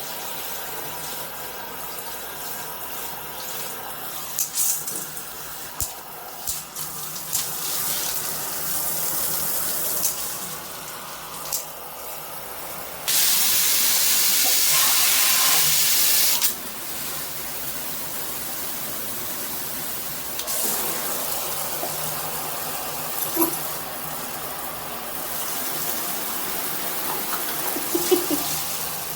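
Water spraying from an AquaCare 8-mode handheld shower head, a steady hiss of running water. For about three seconds midway it becomes a much louder, sharper hiss, and a few short knocks sound along the way.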